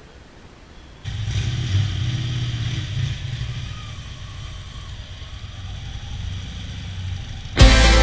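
Motorcycle engine running and revving, coming in suddenly about a second in, loudest for the next two seconds, then easing off. Loud music cuts in near the end.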